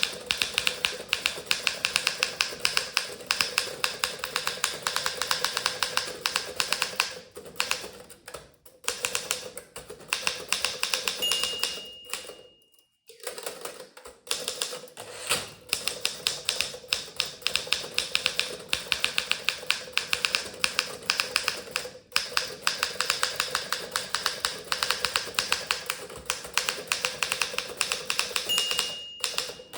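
Remington Senior Writer (Torpedo 17a) manual typewriter being typed on at high speed: a rapid, steady run of typebar strikes. A short ring, the line-end bell, sounds about a third of the way in and again near the end, each followed by a brief pause before typing resumes.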